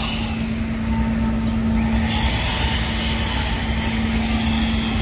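An engine running steadily, a constant hum with low rumble, with a hiss that swells and fades.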